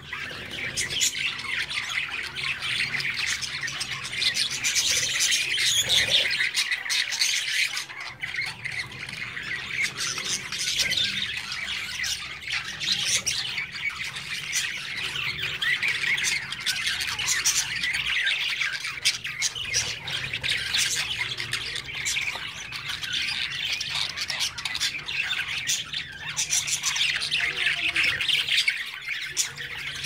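A cage of budgerigars chattering non-stop: a dense, continuous mix of quick warbles, chirps and squawks from several birds at once.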